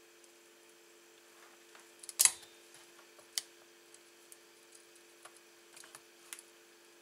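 Metal pliers and a soldering iron clicking and tapping against a PC power supply's circuit board while an old capacitor is worked loose: a loud snap about two seconds in, a sharp click a second later, then lighter ticks. A faint steady hum sits underneath.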